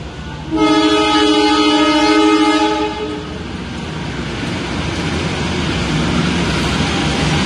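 Diesel locomotive horn sounding one steady blast of about two and a half seconds, starting about half a second in. Then the rumble of the arriving train grows steadily louder.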